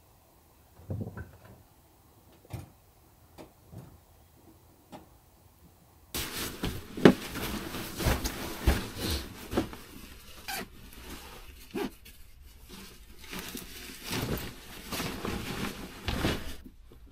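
A few faint taps, then from about six seconds in, dense rustling and crinkling with frequent light knocks as a sleeping mat and sleeping bag are handled and laid out in a cramped plywood cabin.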